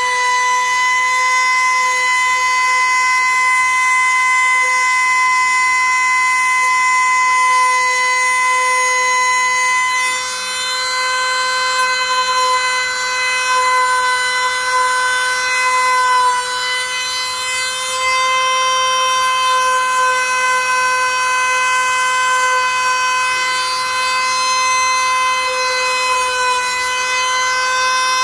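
A small high-speed motor, likely a power tool, running steadily with a constant whine, dipping briefly in level about ten seconds in.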